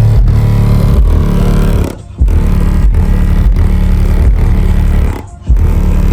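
Car subwoofers in a newly built box playing very loud, bass-heavy music with a steady beat. The bass drops out briefly twice, about two seconds in and near the end.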